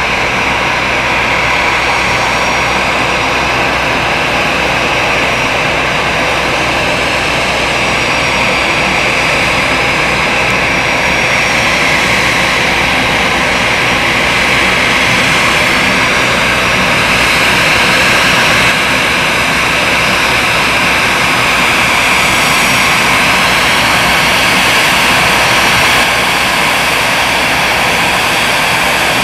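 Airbus A320-214's two CFM56-5B turbofan engines running at low taxi power as the jet rolls toward the camera: a steady, loud rushing whine, strongest in a high hissing band.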